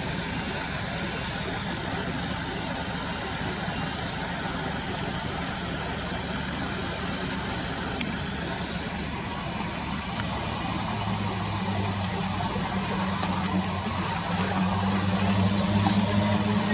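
Car engine idling: a steady low hum that becomes stronger about two-thirds of the way in, over a constant noisy background. A faint high-pitched buzz comes and goes every second or two.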